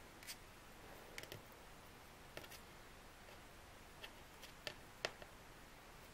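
Faint, scattered light clicks of glass seed beads and thin copper-coated steel wire being handled as a wire is wrapped around a beaded petal. About a dozen irregular ticks over a few seconds.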